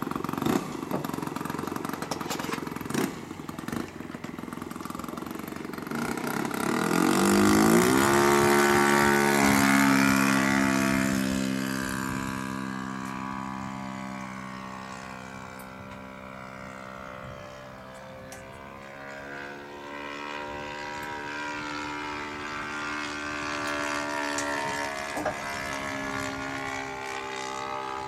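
OS 120 Surpass four-stroke glow engine of a Great Planes Gee Bee R2 model plane, running low and rough with some clatter at first. About seven seconds in it throttles up with a rising pitch and is loudest, then runs steadily in flight, fading as the plane flies off and growing louder again near the end.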